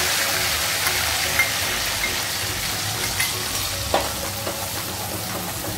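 Ground onion, garlic and ginger paste sizzling in hot oil in a kadhai, stirred with a metal spoon that clinks against the pan a few times.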